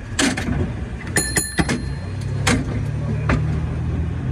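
A stationary cable car on its street track: several sharp metallic clanks, and a brief ringing tone about a second in. A low hum of passing road traffic grows louder in the last second or so.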